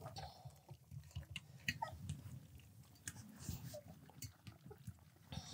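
Three-week-old German shorthaired pointer puppies lapping and chewing puppy mush from a saucer pan: quiet, irregular wet smacking and clicking, with a few faint brief squeaks.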